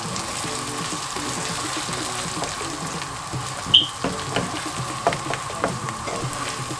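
Diced onions sizzling in palm oil in a frying pan while a wooden spatula stirs and scrapes them, with a few light knocks of the spatula on the pan in the second half. A brief high-pitched beep sounds about halfway through.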